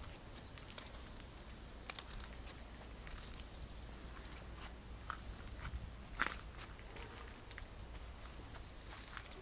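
Quiet outdoor ambience with a low rumble, soft footsteps on brick paving and scattered small clicks, one sharper click about six seconds in.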